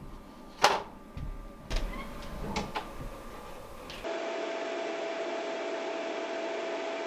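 A few knocks and taps as a plywood sheet is handled on the bed of an AtomStack Hurricane 55 W CO2 laser cutter, the loudest under a second in. Then, from about four seconds in, the laser cutter runs its cutting job with a steady whir and a constant tone.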